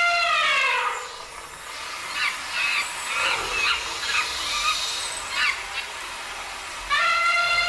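Recorded animal sound effects played over loudspeakers. A long, high call that is held and then falls in pitch opens the sound, and the same call comes again near the end. Short bird chirps sound in between.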